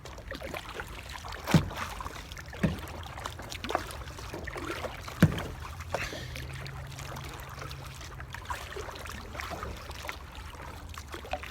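Kayak being paddled: water sloshing and dripping from the paddle strokes, with a few sharp knocks about one and a half, two and a half and five seconds in.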